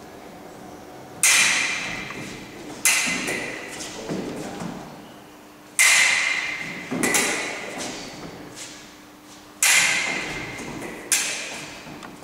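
Six sharp, echoing knocks in three pairs, the two in each pair about a second and a half apart, from the footwork and blade actions of a foil fencing lesson on a wooden hall floor. Each knock rings out for about a second.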